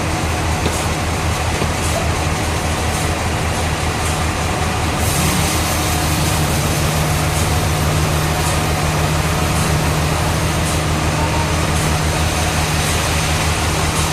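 Sawmill machinery running steadily with a low, even hum. About five seconds in the sound turns brighter and one low tone steps up slightly in pitch.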